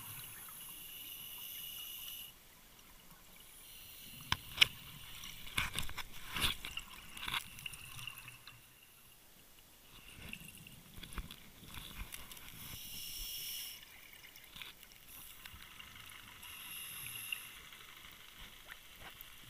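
Scuba regulator exhaust bubbles gurgling in bursts, heard underwater through a camera housing, with a run of sharp knocks and clicks from about four to eight seconds in.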